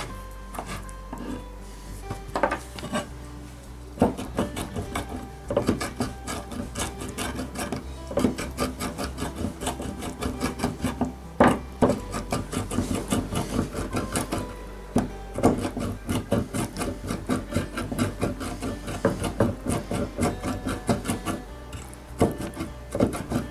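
Knife chopping capers into small pieces on a cutting board: a run of quick, sharp taps, scattered at first and then several a second from about four seconds in.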